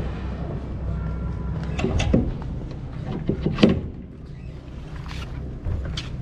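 A boat engine running with a low, steady hum, which drops away about four seconds in. A few short sharp sounds come over it, the loudest a little before it stops.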